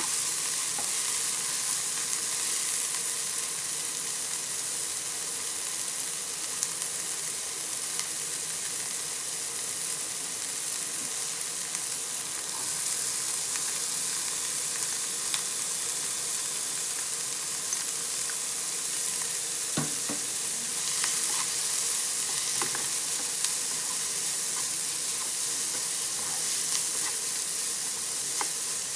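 Chopped onions and diced pig heart sizzling in a nonstick frying pan as a plastic spatula stirs them: a steady frying hiss, with a few light clicks and scrapes of the spatula in the second half.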